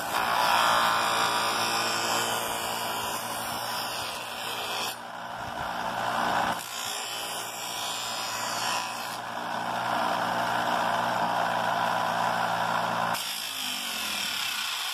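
Bench grinder motor running with a steady hum while the edge of a white boomerang blank is ground on its abrasive disc. The grinding noise rises and falls as the piece is pressed on and moved. This is the pre-finishing pass that takes off imperfections before the boomerang is shaped.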